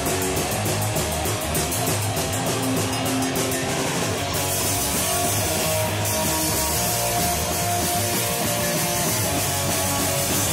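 Ska band playing with electric guitars, bass and drums. A fast, even ticking sits on top for the first four seconds or so, then stops.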